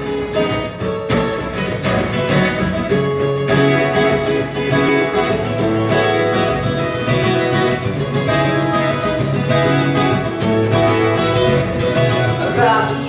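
Two acoustic guitars playing together, plucked notes over strummed chords, as the instrumental introduction of a song before the vocal comes in.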